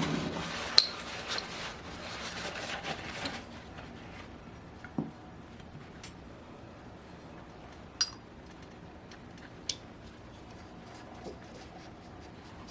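Metal parts of a model glow engine being scraped and rubbed for about the first three seconds, then a few scattered light metallic clicks and taps as the small parts are handled.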